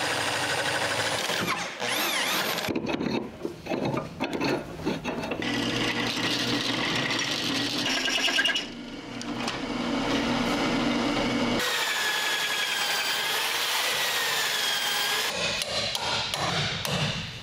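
Power drill cutting holes in cast bronze gudgeons, drilling and then countersinking them for rivets. It runs in several stretches, with a wavering metallic squeal from the cutter between about twelve and fifteen seconds in.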